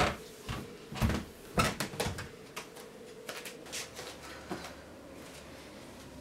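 A few sharp knocks and thuds in the first two seconds, then a handful of fainter clicks over a steady low hum.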